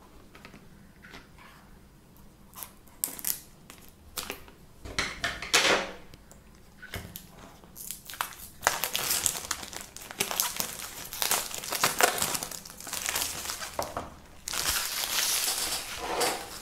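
Clear plastic shrink-wrap being picked at and torn off a small cardboard box, crinkling and crackling. Sparse crackles at first, then near-continuous crinkling over the second half.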